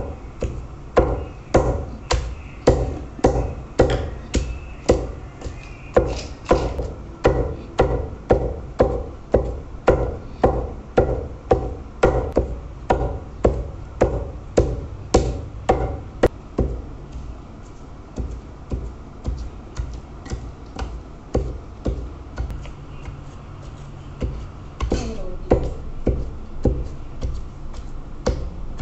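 Heavy wooden pestle pounding meat paste in a large stone mortar: dull, even thuds about two a second, growing sparser and softer for a few seconds past the middle before picking up again near the end.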